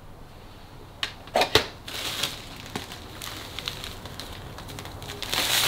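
A few light clicks and knocks of craft items being handled, then a plastic bag crinkling and rustling near the end as it is picked up.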